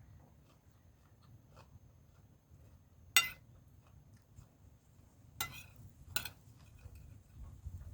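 Spoon clinking against a plate or bowl while eating: three sharp clinks, the loudest about three seconds in and two more around five and a half and six seconds.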